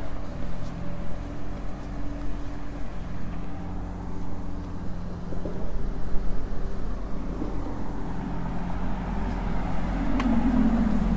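A motor vehicle engine running with a steady low hum, with a brief click about ten seconds in.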